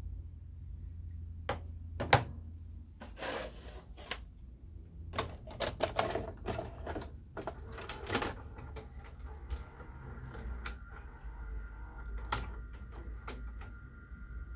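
Plastic clicks and knocks as a Sony VHS recorder's remote is handled, set down on a table and its buttons pressed, then the Sony SLV-X327 VCR's tape mechanism starting up: a steady high whine with a couple of mechanical clicks as the machine loads and runs the tape.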